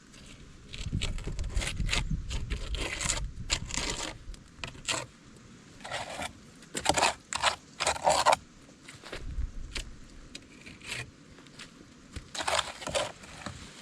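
Trowel scraping and pressing cement mortar around a stone to set it firm, in a run of irregular short scrapes.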